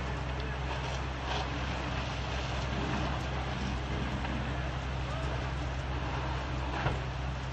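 Fire engine's engine running steadily, a continuous low hum under an even wash of noise, with one sharp click near the end.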